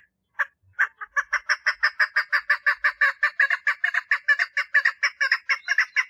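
Female chukar partridge calling for a mate: a few spaced clucking notes that quicken after about a second into a fast, even run of about five notes a second.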